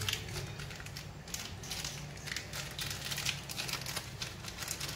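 Plastic instant-noodle packaging crinkling and crackling irregularly in hands as an Indomie packet is handled and opened.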